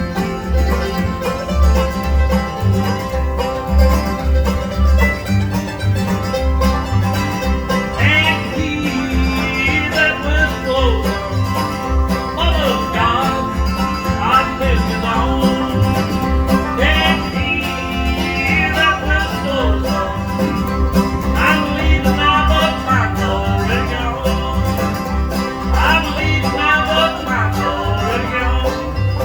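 Bluegrass band playing, with banjo and guitar over a steady beat of bass notes. About eight seconds in, a sliding lead line comes in and plays in repeated phrases.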